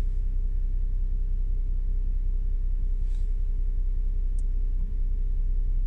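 Steady low rumble inside the Audi S7's cabin, with a couple of faint ticks about three and four and a half seconds in.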